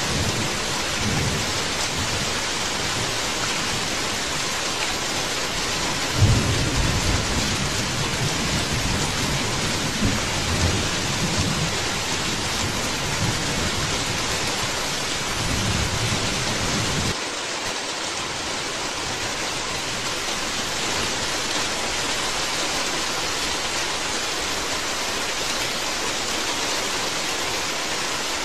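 Steady rain with rolls of thunder through the first half, the loudest about six seconds in. The low rumble cuts off suddenly a little past halfway, leaving the rain alone.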